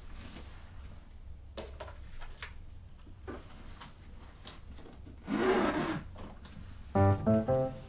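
Handbag being handled on a wooden dresser top: soft rustles and light knocks, with a louder rub of the bag against the wood about five seconds in. Piano music starts near the end.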